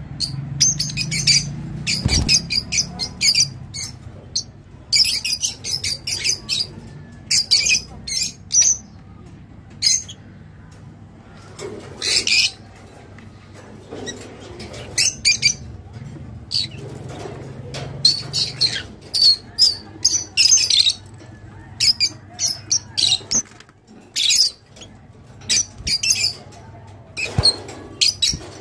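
Rosy-faced (peach-faced) lovebirds chirping and squawking: many short, sharp, high-pitched calls in irregular rapid clusters, with brief pauses between them.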